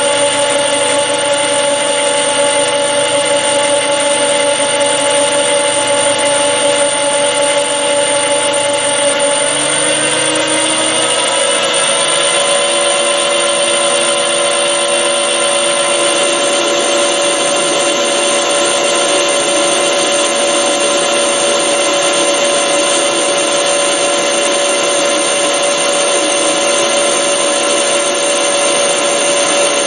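Metal lathe running under power feed, turning an aluminium bar: a steady whine of motor and gears with several level tones, which shift slightly up in pitch about ten seconds in.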